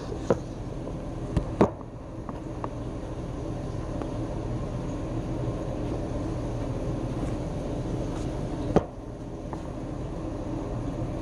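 Steady mechanical hum of kitchen equipment with a low drone, with a few short knocks in the first two seconds and a sharper knock about nine seconds in.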